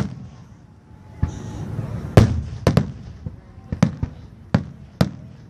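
Aerial fireworks shells bursting, about ten sharp bangs in quick succession, the loudest a little after two seconds in.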